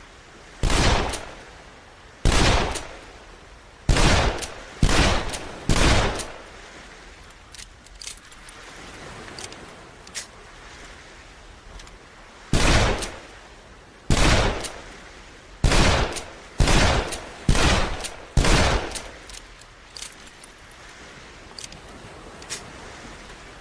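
Smith & Wesson Model 15 .38 Special revolver fired eleven times, each shot followed by an echoing tail. There are five shots at uneven spacing over about five seconds, a pause with faint clicks, and then six more shots with the last four coming faster, about one a second.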